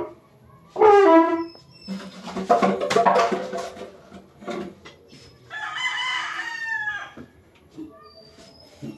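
Rooster crowing, with one long crow a little past halfway through. Louder, short vocal sounds with sliding pitch come earlier, about a second in and again around three seconds.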